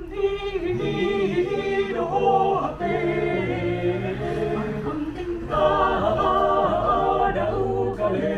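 Choir singing a Batak folk song a cappella: several voice parts in chords, with a low part moving in short rhythmic steps beneath.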